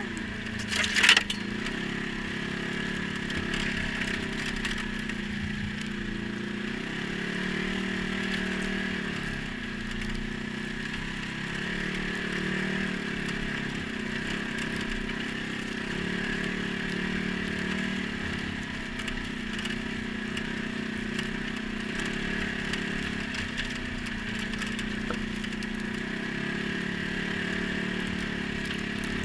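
ATV engine running at a steady speed, with a short clatter about a second in.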